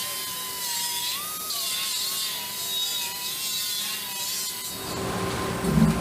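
A machine-shop power tool running, with a steady, slightly wavering whine over a hiss. Music with a drum beat comes in near the end.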